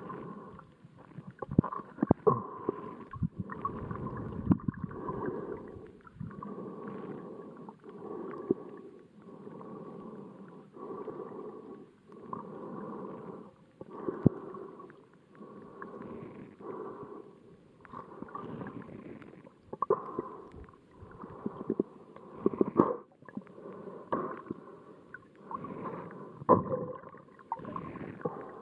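Muffled underwater water noise picked up by a submerged camera moving over a shallow reef. It swells and fades about every second and a half, with scattered sharp clicks.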